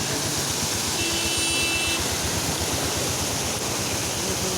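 Steady rushing of water, with a brief faint high tone about a second in that lasts about a second.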